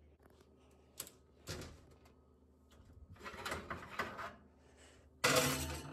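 Clinks and rattling of a glass baking dish being set onto a wire oven rack, with a louder clatter starting suddenly near the end.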